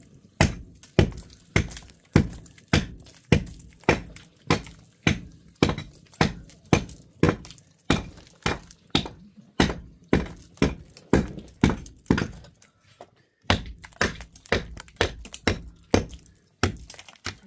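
A hammer striking a concrete-block wall in a steady run of sharp knocks, two or three blows a second, with a short pause about twelve seconds in.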